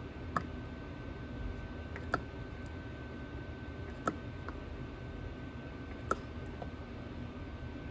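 Engine oil being poured slowly from a plastic jug into a funnel, with a short click about every two seconds over a low steady hum.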